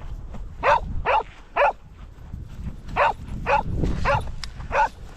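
A dog barking: seven short barks, three in quick succession, a short pause, then four more.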